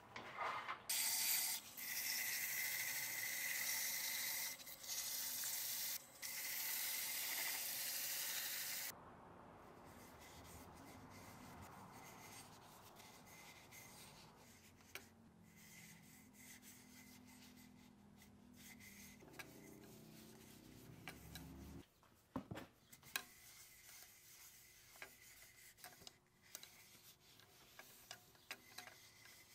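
Sandpaper rubbing against a fir wood goblet spinning on a wood lathe, in three stretches over the first nine seconds. After that, quieter rubbing with a low hum for several seconds in the middle and a few small clicks.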